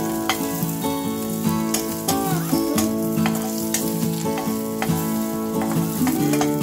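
Carrot pieces sizzling as they fry in oil in a stainless steel pan, stirred with a spatula that clicks and scrapes against the pan now and then. A music track with held notes plays underneath throughout.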